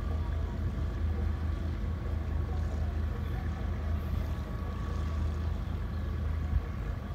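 Diesel engine of a small wooden fishing boat running steadily under way at low speed, a low, even chugging hum.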